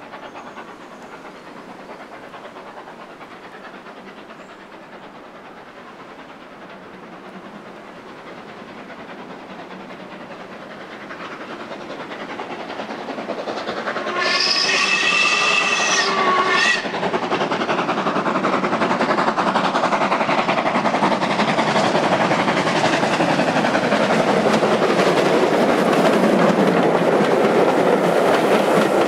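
Ivatt Class 2 2-6-2 tank steam locomotive No. 46521 coming closer with its train, growing steadily louder, then sounding its steam whistle for about two and a half seconds around halfway through. The locomotive and its carriages then run past close by, loud and steady, with wheels clattering over the rails.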